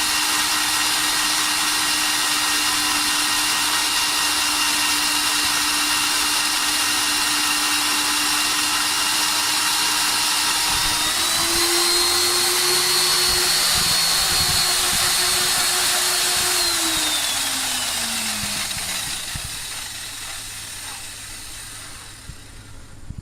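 Kong Sung PW14 concrete core drill motor running with a steady whine, its pitch stepping up a little about halfway through. It is then switched off and winds down, the whine gliding lower and fading.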